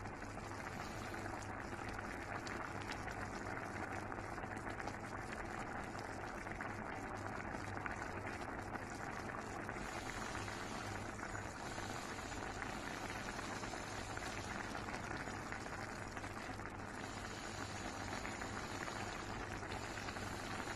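A pot of fish paksiw, fish and long green chilies in vinegar broth, simmering on a stove burner with a steady bubbling and crackling.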